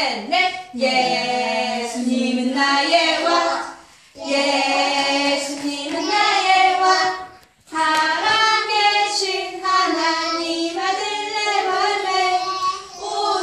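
Young children singing a song together with a woman, in held sung phrases broken by two short pauses, about four seconds in and again a few seconds later.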